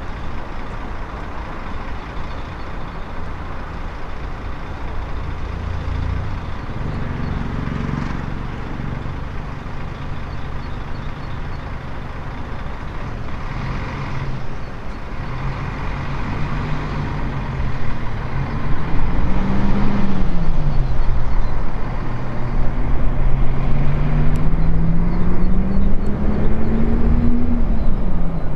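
DB Class 152 electric locomotive moving off light engine, its traction drive whining in a pitch that rises and dips once, then climbs steadily near the end as it gathers speed, over a steady low rumble that grows louder partway through.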